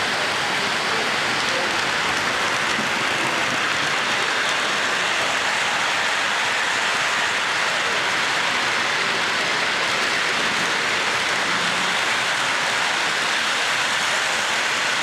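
Steady rushing whir of O-gauge model trains running on three-rail track, an even noise with no distinct clicks or change in level.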